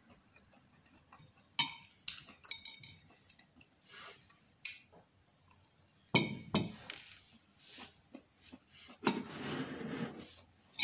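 Metal fork and knife clinking and scraping on a plate: a few sharp, ringing clinks about two seconds in, then scattered softer knocks and eating noises.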